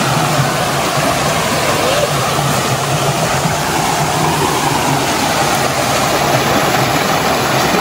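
Shallow rocky stream running over small cascades: a steady, even sound of flowing water.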